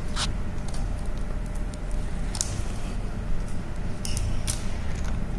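Plastic drink bottle and plastic cup handled on a wooden tray: a few light, sharp clicks and taps, spread a second or two apart, over a steady low room hum.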